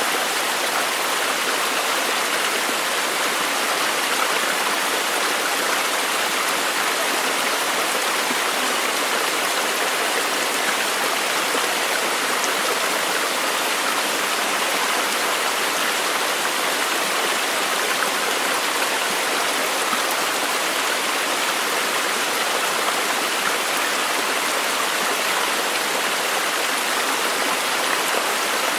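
Running water: a steady, even rush with no pauses or separate drops.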